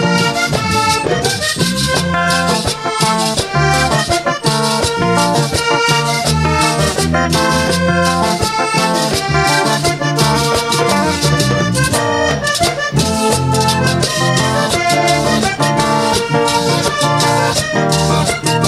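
Vallenato band playing an instrumental passage: button accordion carrying the melody over a caja drum, a guacharaca scraper and electric bass, in a steady dance rhythm.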